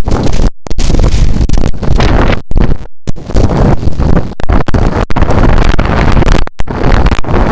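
Strong wind buffeting the microphone in a rain and wind storm, a loud rumbling noise that cuts out for split seconds several times.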